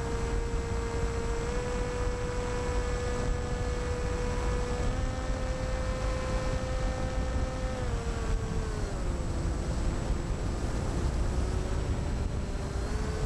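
Electric motor and propeller of a Skywalker FPV plane, a Rimfire .25 brushless outrunner turning an APC 10x7e prop, whining steadily in flight, heard from the onboard camera with a heavy rush of wind on the microphone. The whine steps up in pitch twice, slides down about two-thirds of the way in, then climbs again near the end.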